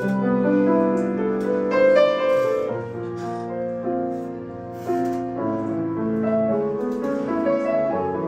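A small live band playing, led by piano chords.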